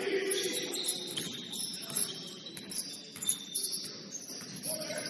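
Gym basketball game: a run of short, high-pitched squeaks and chirps, typical of sneakers squeaking on a hardwood court, over a low murmur of voices.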